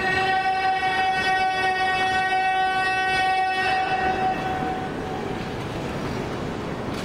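A single steady pitched note, rich in overtones, held for about three and a half seconds and then cut off, its echo lingering briefly in the large hall.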